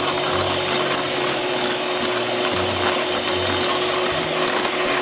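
Electric hand mixer running steadily, its beaters whipping cream in a bowl, with a steady motor whine.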